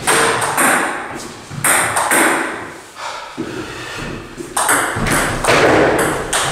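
Table tennis ball in a rally, a series of sharp clicks as it is struck by the bats and bounces on the table, about every half second to a second, with a short lull around three seconds in.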